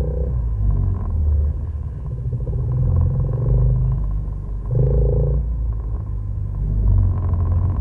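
Off-road vehicle engine running in a low rumble while driving a dirt trail, its note swelling with the throttle a few times.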